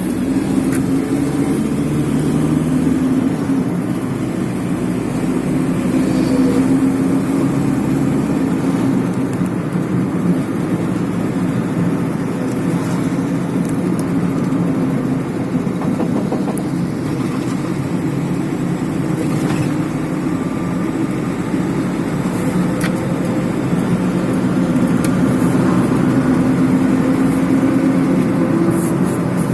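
Volkswagen T4 van on the move: steady engine and road noise, with a few faint knocks now and then. The knock appeared after the rear brake pads were replaced.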